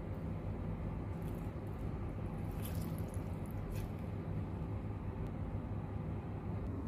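A lemon half squeezed by hand through a metal strainer, giving a few faint squishes and drips about three times, over a steady low hum.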